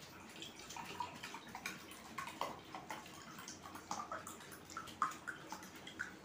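Water glugging as it is poured from a plastic bottle into a glass tumbler, in quick irregular gurgles and splashes.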